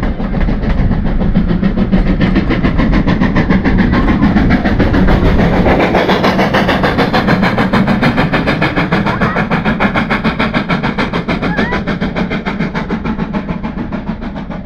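Passenger train coaches passing close by, a heavy rumble with rapid rhythmic wheel clatter on the rails, fading as the train draws away near the end.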